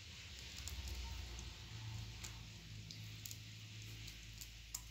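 Faint wet squishing and a few small clicks of hands peeling the tough yellow lining off raw chicken gizzards over a stainless-steel bowl, over a steady low hum.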